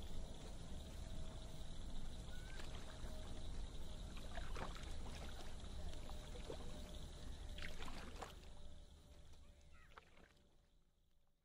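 Faint backwater ambience: water lapping with a few small splashes and drips over a low steady rumble. It fades out to silence near the end.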